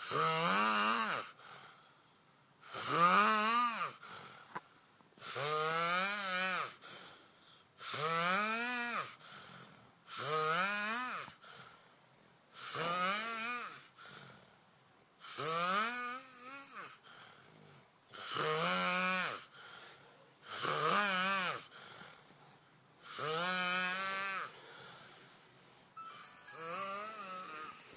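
A sleeping man snoring in a steady rhythm, about one snore every two and a half seconds, around eleven in all. Each snore is a drawn-out buzzing tone that rises and then falls in pitch, with quieter breathing between snores.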